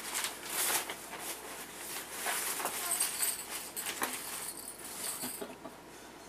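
Packaging rustling and crinkling as items are handled and pulled from a bag, in irregular crackles and scrapes that die down near the end.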